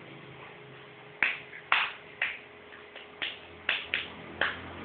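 Whiteboard marker tapping and stroking on a whiteboard: about seven short, sharp scratchy sounds in an uneven rhythm, starting about a second in.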